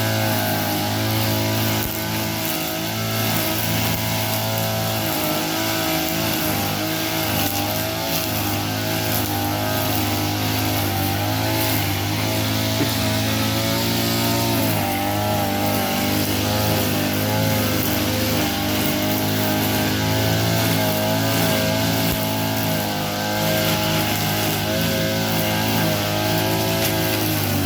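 Small Ogawa petrol engine running steadily at high revs, its pitch wavering slightly up and down.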